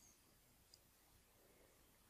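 Near silence: faint room tone, with one small tick a little before halfway.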